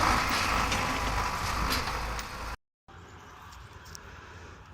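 A heavy engine running with a steady, loud rumble, which cuts off abruptly about two and a half seconds in, followed by quieter background noise.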